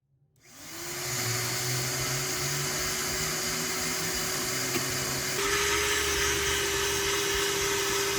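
A small electric motor starts up about half a second in, its whine rising briefly, then runs steadily. A little past halfway the whine steps slightly higher and a low rumble joins in.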